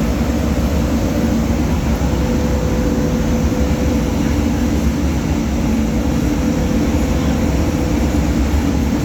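4R roller mill in a dolomite plant running under load during a load test: a steady, loud mechanical drone with a constant low hum that holds without change.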